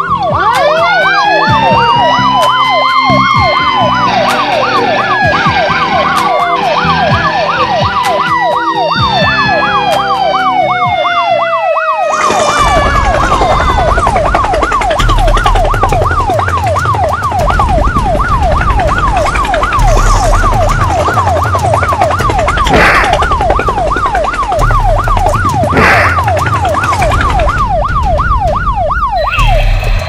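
A fast yelping siren sound effect, rising and falling several times a second, overlaid with swooping whistle-like glides in the first twelve seconds. About twelve seconds in, a low rumbling noise with a few sharp thuds joins the siren.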